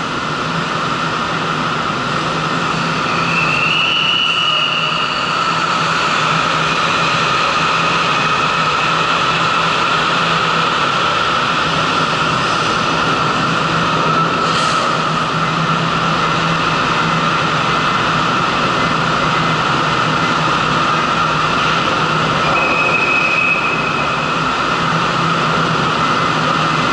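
Steady, loud machinery drone inside a ferry's enclosed vehicle deck: the ship's running machinery and ventilation, with a constant low hum. A thin high tone sounds briefly twice.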